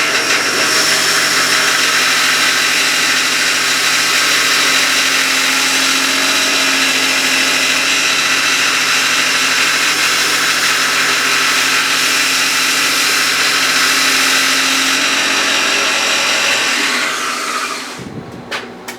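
Electric motor of a power tool running steadily with a whine, then switched off about fifteen seconds in and spinning down to a stop over a couple of seconds.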